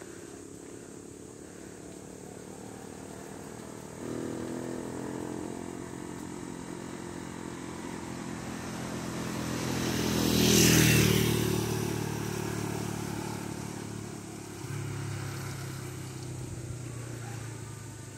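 A motor vehicle passing close by: its engine hum builds, is loudest about ten and a half seconds in, then fades away. A steadier engine hum comes in a few seconds later.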